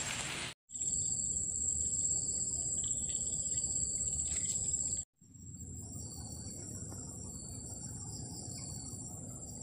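Insects chirring steadily at a high, even pitch over a low hiss, with two brief dropouts, the second followed by a quieter stretch.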